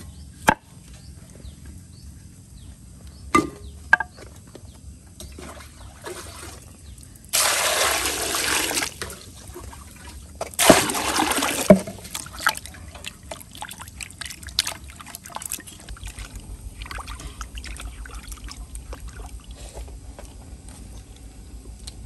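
Water poured into a large glazed clay basin holding carrots and other root vegetables, in two pours, the first about a second and a half long and the second about a second, followed by lighter splashing as the vegetables are rubbed clean in the water by hand. A few sharp knocks come in the first four seconds.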